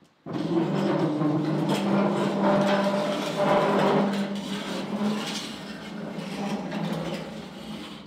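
Heavy butcher-block workbench's steel legs dragging across a concrete floor, a loud, rough grinding scrape with a droning pitch, easing off toward the end as the table is pushed into place.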